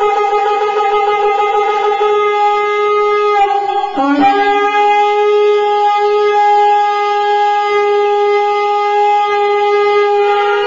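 A horn held on one loud, steady note, broken briefly with a dip in pitch about four seconds in, then held again.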